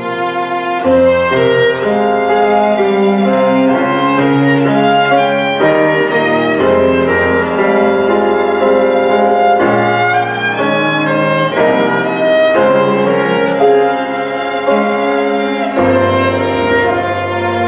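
Chamber music on bowed strings: a violin plays a slow melody of held notes, changing about once a second, over lower sustained string notes.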